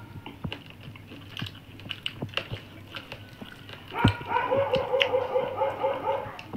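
Eating with the hands from steel plates: a steady patter of small clicks and smacks from fingers working rice and from mouths. About four seconds in an animal gives a quick run of about eight calls over two seconds, the loudest sound.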